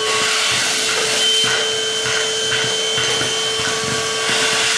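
Homasy cordless handheld wet/dry vacuum, running on its 14.8-volt lithium battery, with a steady motor whine and rush of air as it sucks up spilled crackers and peanuts. Its suction is strong.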